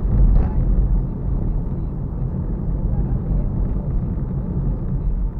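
Car driving, heard from inside the cabin: a steady low rumble of engine and road noise, with a brief louder swell about half a second in.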